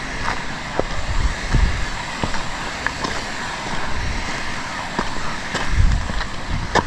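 Wind buffeting the microphone in uneven low rumbling gusts over a steady hiss, with scattered faint short ticks.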